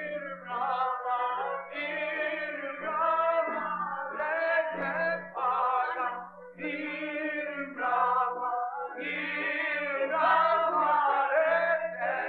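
A group of voices singing an Albanian folk wedding song in short phrases with brief breaks between them.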